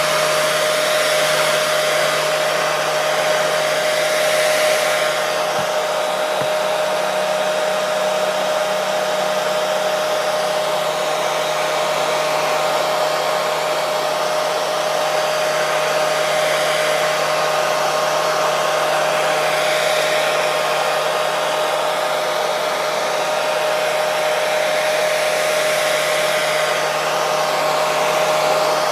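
Hair dryer running steadily: a constant rush of blown air with a steady hum running through it.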